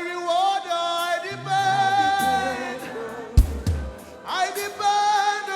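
Gospel worship song: a voice holding long sung notes with vibrato over the accompaniment, with low drum beats about three and a half seconds in.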